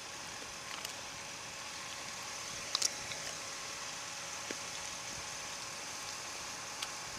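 Steady outdoor background hiss with a faint steady hum, broken by a few soft scattered clicks and a sharper double click about three seconds in.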